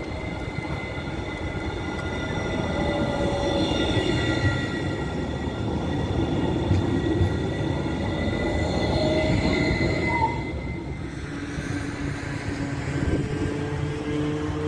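Tram wheels squealing on the rails, a set of high steady tones over the running rumble of a passing tram, which stop about ten seconds in; a lower steady hum follows near the end.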